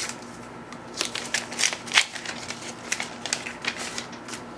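Paper envelope and letter being handled and opened, a quick run of crisp rustling and crinkling with no voice.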